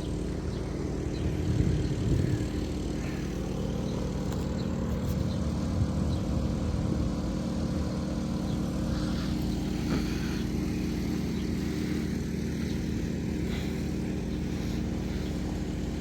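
Boat engine running steadily: a low, even hum.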